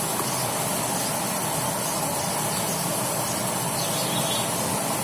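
Steady, unchanging rushing hiss from a constant background source such as a running fan or appliance.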